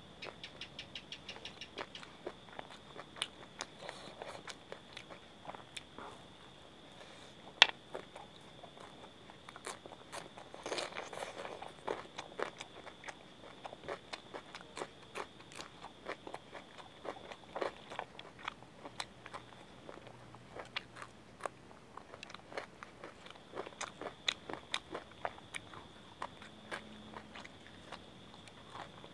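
Close-miked eating of raw green chillies and fried onion fritters (piyaju): crisp crunching bites and chewing, opening with a quick run of small crunches, with one loud crack about eight seconds in and a denser spell of crunching a few seconds later. A faint steady high-pitched whine sits underneath.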